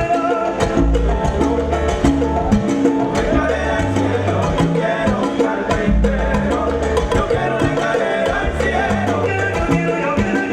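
Salsa band playing an up-tempo number, with a bass line changing notes about once a second under dense percussion strokes and sustained pitched parts.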